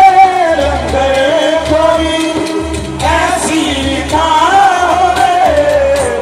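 Male voices singing a devotional qasida in Punjabi, drawing out a long wavering melodic line held over one pitch, with dhol barrel drums beating underneath.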